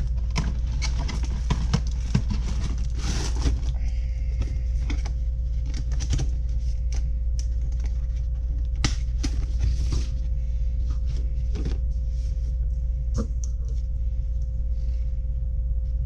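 Cardboard microphone boxes being handled: scattered light clicks, taps and rustles as a box lid is lifted, a box slid and set down and another picked up, over a steady low hum and a faint steady tone.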